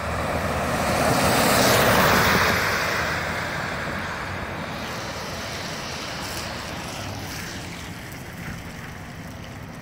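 Fire department SUV driving past on a wet road. Its tyre hiss and spray swell to a peak about two seconds in, then fade as it drives away.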